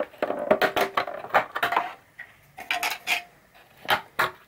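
Clinking and clattering of small hard objects being handled, dense for about two seconds, then a few scattered clicks.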